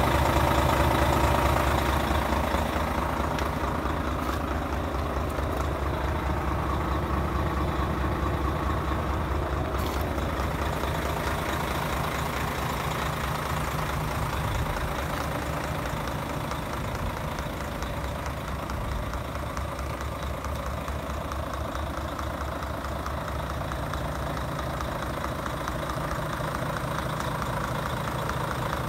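Volvo FH500 truck's 12.8-litre straight-six diesel idling steadily, a little louder in the first couple of seconds.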